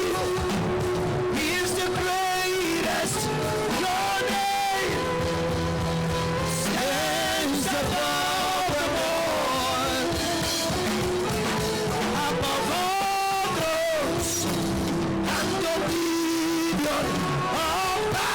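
Live worship music: a band with guitar playing steadily, with a wavering sung or lead melody line held over it.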